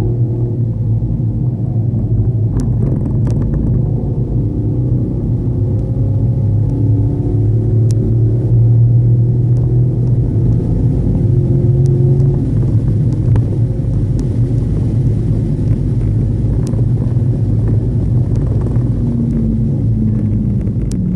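Car engine running at fairly steady, moderate revs under a heavy rumble of road and tyre noise, as heard from inside the car.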